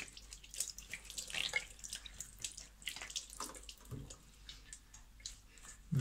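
Water from a bathroom basin tap running over hands being washed, splashing unevenly into the sink.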